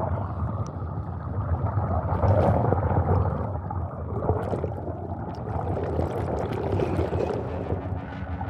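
Low, churning noise like bubbling or gurgling water, dense and uneven throughout, with faint scattered ticks above it.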